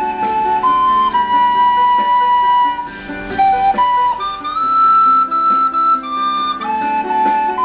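Plastic soprano recorder playing a slow melody of held notes that move step by step, over a lower plucked-string accompaniment.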